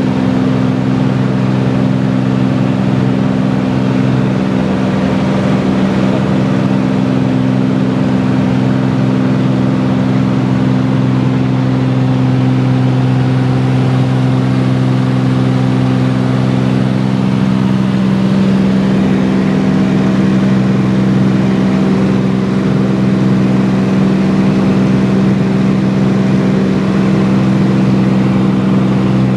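Cabin drone of a 1977 Cessna U206G floatplane's six-cylinder piston engine and propeller in flight after takeoff: a loud, steady hum made of a stack of low tones, with a slight shift in pitch about halfway through.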